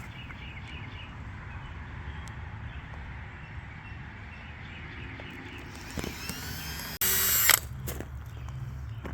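Power drill running in a short burst of about half a second, near the end, putting a pilot hole or small screw into red oak for a glass-retaining tab.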